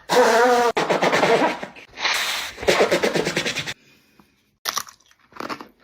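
A congested person making loud, rough nasal and breathing noises for about three seconds, then a few short crisp crunches of chewing a crunchy snack near the end.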